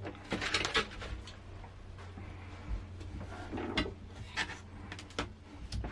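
Plastic and metal parts of a disassembled LCD monitor being handled and moved about: scattered clicks and light knocks, a small cluster at the start and then single ones every second or so, over a steady low hum.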